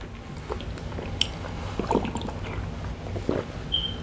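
Water sloshing in a large plastic water jug, with scattered small clicks and knocks as the jug and a cup are handled to get a drink.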